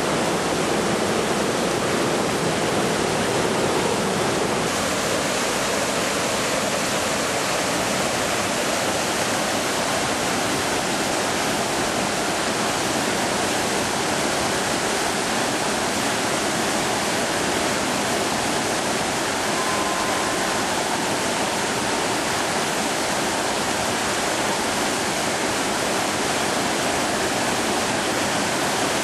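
Whitewater rapids of a large river rushing steadily, a constant loud churning of water.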